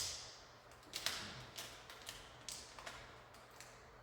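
Adhesive tape being pulled from the roll and pressed on to hold a glass pane, heard as a string of short sharp rips and taps at irregular intervals.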